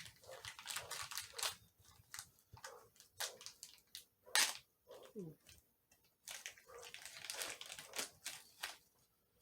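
Faint rustling and crinkling of toy packaging being handled, in short irregular scrapes and crackles.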